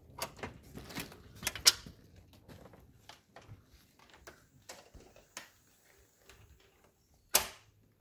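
Irregular series of sharp clicks and taps, with the loudest taps about one and a half seconds in and a single louder knock with a short ringing tail near the end.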